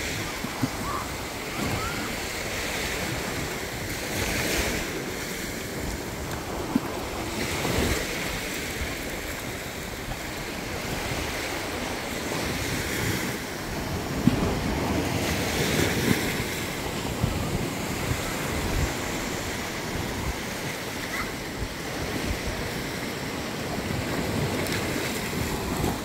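Sea surf washing up a sandy beach, swelling and easing every few seconds, with wind on the microphone and a few short knocks.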